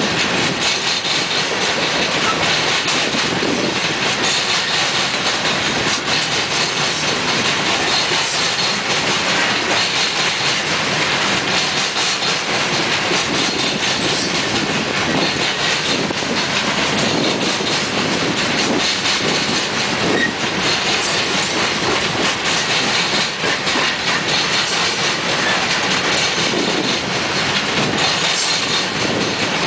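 Loaded-length string of coal hopper cars of a unit coal train rolling past: a steady, loud rumble and rattle of steel wheels on the rails, with a continuous clickety-clack over the rail joints.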